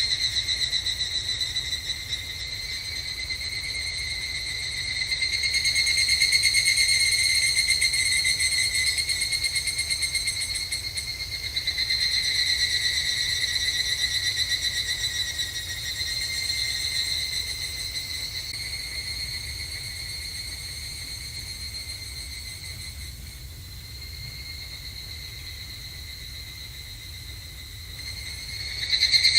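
Evening cicadas (higurashi, Tanna japonensis) singing in a chorus of rapid pulsing trills, several overlapping songs swelling and fading in turn. The chorus thins in the last third, then one loud song starts up right at the end.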